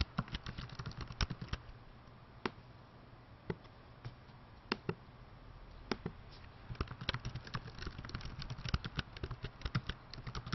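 Typing on a computer keyboard: a few scattered single key presses, then a quick run of keystrokes in the second half.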